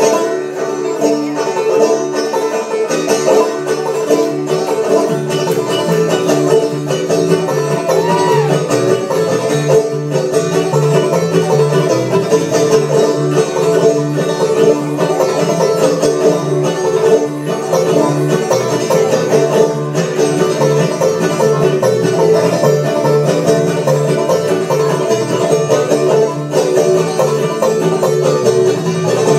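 Clawhammer-style banjo playing a bluegrass tune live with a string band, guitars strumming along; the music kicks in suddenly at the start and carries on steadily.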